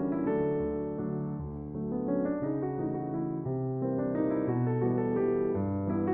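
Background music: a soft piano or electric piano playing a melody of sustained notes over a bass line.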